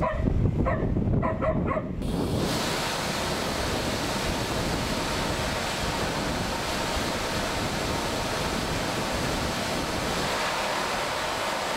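Wind rushing over the microphone on open ground, a steady even noise that begins abruptly about two seconds in, after a moment of a man's voice over a low rumble.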